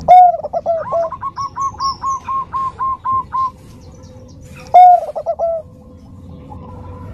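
Zebra dove (perkutut Bangkok) cooing. A loud opening note is followed by a fast run of about a dozen short, even coos at roughly five a second. About five seconds in comes a second loud opening note with a few quick coos.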